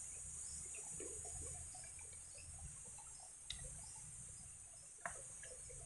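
Faint chewing and mouth sounds of a man eating chicken and rice by hand, over a steady high chirring of insects. Two sharp clicks come, one about three and a half seconds in and one near the end.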